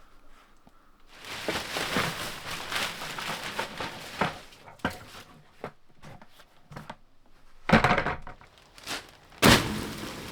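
Rustling and crumpling handling noise, followed by a series of sharp knocks; the two loudest come near the end.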